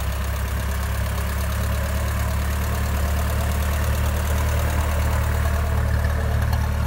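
Restored Massey Ferguson 35 tractor's engine running steadily as the tractor is driven off.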